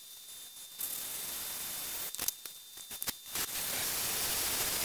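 Cordless drill spinning a valve of a VW 1.8T 20-valve head against its seat through a silicone hose on the stem, lapping it in with 220-grit compound. The result is two stretches of steady gritty noise, the second starting about halfway through, with a few clicks between them.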